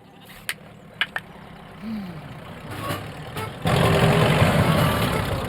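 A heavy vehicle engine running, growing louder and jumping sharply in level about two-thirds of the way through, after a few sharp clicks near the start.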